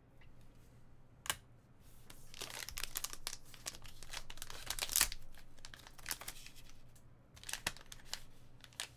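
Metallic foil pouch crinkling and crackling as hands pull it open, dense from about two seconds in, loudest near five seconds, with a few more crinkles near the end. A single sharp click about a second in.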